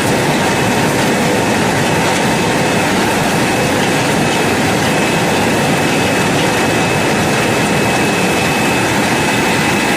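Industrial bubble washing machine running: a steady rushing noise of air bubbling through its wash tank, with a thin high whine held throughout.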